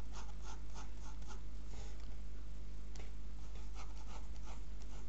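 Pencil sketching on sketchbook paper: quick scratchy strokes, several a second, in runs with a short pause around the middle. A steady low electrical hum lies underneath.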